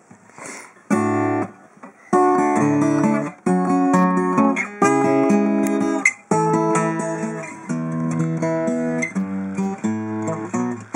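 Sigma DR-7 dreadnought acoustic guitar, an early-1970s Japanese-made model, played close to the sound hole. One chord rings out about a second in, then from about two seconds a run of strummed and held chords, changing every second or so.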